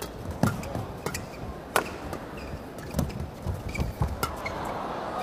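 Badminton rackets striking the shuttlecock in a fast doubles rally: a quick series of sharp cracks, irregularly spaced about half a second to a second apart, over the hum of an indoor arena.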